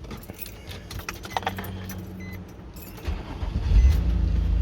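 Keys jingling at the ignition, then the 2006 Nissan Murano's 3.5-litre V6 starts about three seconds in and settles into a steady idle. The engine runs now that the failed fuel pump has been replaced.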